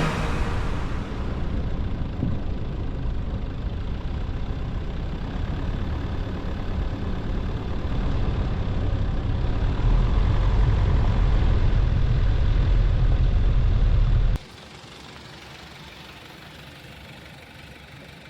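A four-wheel-drive vehicle driving along an off-road trail: steady engine and road noise with a strong low rumble, slightly louder around the middle. About 14 seconds in it cuts off sharply, leaving a much quieter steady hum.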